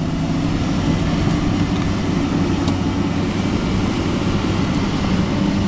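Heavy-equipment diesel engine running steadily at an even pitch, from the excavator or dump truck at work.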